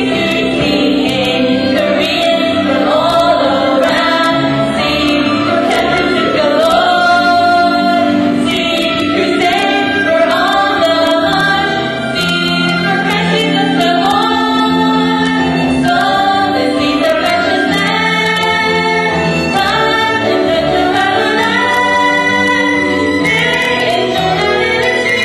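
Music: a choir singing, in a gospel or Christian vocal style.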